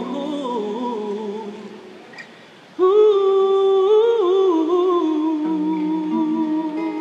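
A male voice sings a wordless, hummed melody over acoustic guitar. The first phrase winds down and fades out within about two seconds; about three seconds in a new long note begins, is held, and slides lower partway through.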